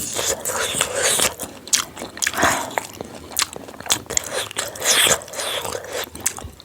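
A person eating close to the microphone: bites and chewing of a meal of spicy instant noodles, fried pork and fried egg, coming in irregular bursts.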